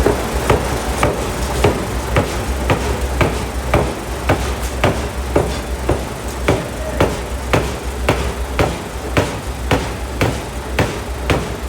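750 kg pneumatic forging hammer striking a hot steel block in a steady rhythm, about two blows a second, over the steady low hum of the running machine.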